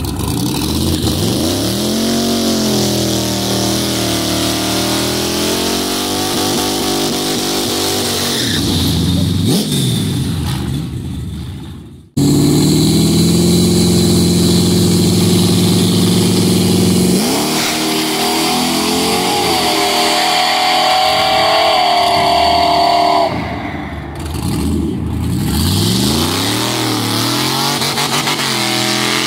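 Drag-racing car engines revving hard, rising and falling. After a cut, two engines are held at high revs on the start line, then launch and climb in pitch through gear changes as they pull away down the strip.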